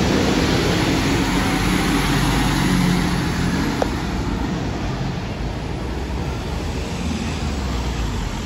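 Fire engine's diesel engine running as it drives past, heard over steady city traffic noise, strongest for the first few seconds and easing off after.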